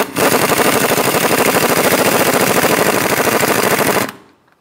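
Impact wrench hammering as it runs down the nut on a new sway bar link's bolt: a loud, rapid, steady rattle of blows that cuts off suddenly about four seconds in.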